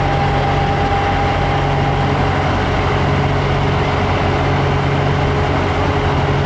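Heavy diesel truck engine running with a steady low drone. A thin steady whine over it fades out about two and a half seconds in.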